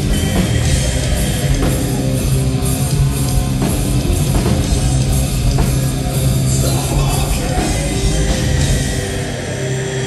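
Live heavy rock band playing loud: distorted electric guitar over a pounding drum kit, easing off slightly in the last second.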